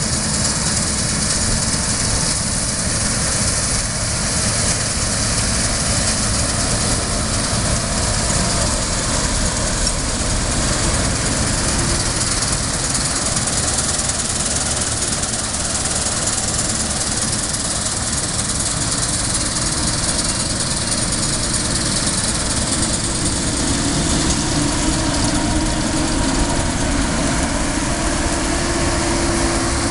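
CLAAS Lexion 530 combine harvester running at working speed while cutting a standing oilseed crop (camelina): a steady, loud drone of its diesel engine and threshing machinery. A new tone comes in about two-thirds of the way through as the machine comes alongside.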